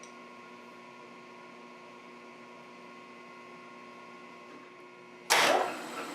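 Steady electrical hum with several fixed tones; about five seconds in, the milling machine's motor switches on with a sudden loud start and keeps running.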